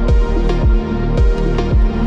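Background music with a steady beat, about two beats a second, over a sustained bass line and pitched notes.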